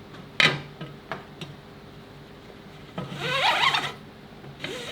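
Harness webbing being handled and pulled through the slots of a diving backplate: a sharp knock about half a second in, a few light ticks, then a longer rubbing, squeaky pull about three seconds in.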